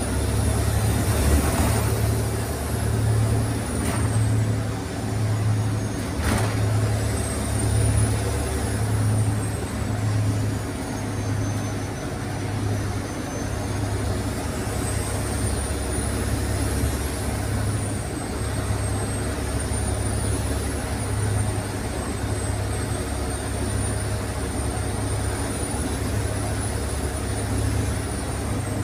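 Wright Eclipse SchoolRun bus under way, heard from its rear seats: a low, pulsing drone from the diesel engine and drivetrain, mixed with steady road noise. Over it runs a thin, high whine that wavers up and down, and there are two sharp knocks a couple of seconds apart near the start.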